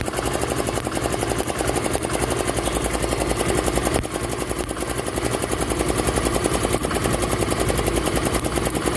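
Yamaha Ray BS6 scooter's single-cylinder engine idling with an even, fast pulse, dipping briefly about four seconds in. The mechanic puts its stalling at idle and misfiring down to a loose earth wire shorting against the ignition coil.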